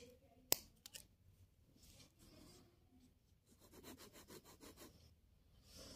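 Faint scratching of a Reynolds Trimax pen scribbling on ruled notebook paper, a quick run of strokes in the second half, after a single sharp click about half a second in.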